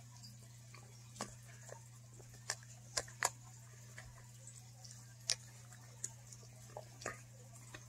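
A dog licking and gnawing at a hard iced dog cookie: scattered sharp little clicks and smacks of tongue and teeth, a few every couple of seconds, over a faint steady low hum.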